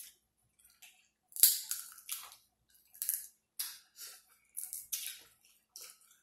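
King crab leg shell being cracked and picked apart by hand, with the meat chewed close to the microphone: a string of irregular sharp cracks and crackles, the loudest a sharp crack about a second and a half in.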